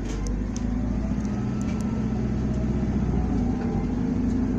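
Isuzu Erga city bus's diesel engine heard from inside the bus as it drives and accelerates: a steady low drone that grows gradually louder, with a faint rising whine in the first second.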